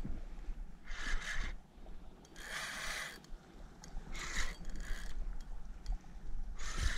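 Kayak paddle strokes splashing in the water, four strokes about a second and a half apart.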